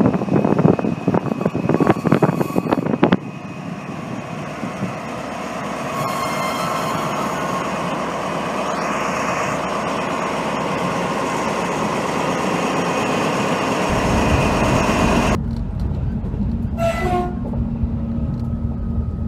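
SNCF BB 67400-class diesel-electric locomotive BB 67414 passing close by as it draws a Corail train into the station: engine and wheels rumbling steadily, with loud irregular noise in the first three seconds and a brief high tone about six seconds in. About fifteen seconds in this gives way to the low, steady rumble of a moving train heard from inside a passenger coach.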